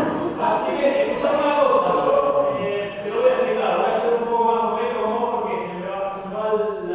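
Several voices singing a slow chant together, with long held notes.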